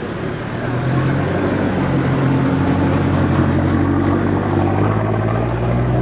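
Engine running with a steady low hum, growing louder about a second in and rising slightly in pitch.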